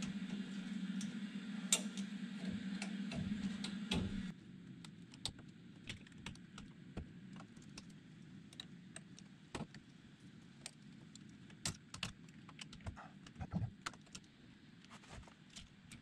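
Irregular small metallic clicks and scrapes of a hook tool picking at the snap ring under the pressed-down lock plate of a GM tilt steering column. A steady low hum stops about four seconds in.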